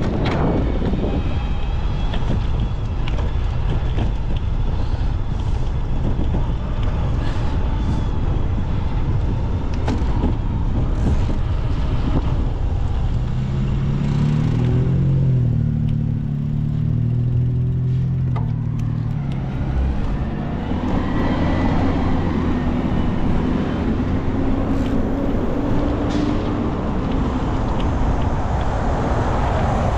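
Road traffic heard from a moving bicycle: a steady low rumble, with a vehicle engine droning loudly about halfway through and another engine rising in pitch as it pulls away after it.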